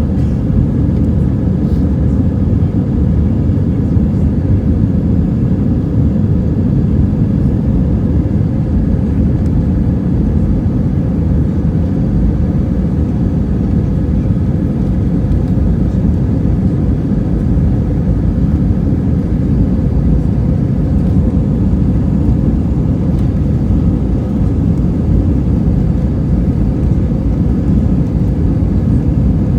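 Steady, loud Airbus A319 cabin noise heard from inside the cabin: the even roar of the jet engines and airflow with a faint steady whine.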